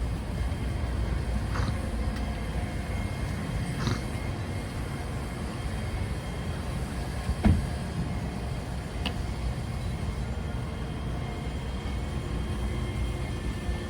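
City street traffic: vehicles passing in a steady low rumble, with one sharp thump a little past halfway.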